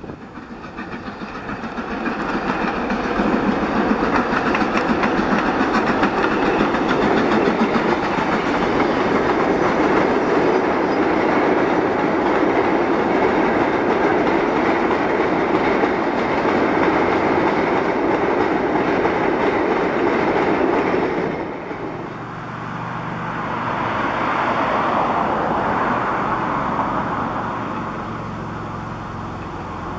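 Goods train of empty steel mineral wagons rolling past behind an LMS Stanier Black Five 4-6-0 steam locomotive, the sound building over the first few seconds into a loud, steady rumble and clatter of the wagons on the track. It drops suddenly about 21 seconds in, giving way to a quieter sound as a steam locomotive approaches in the distance.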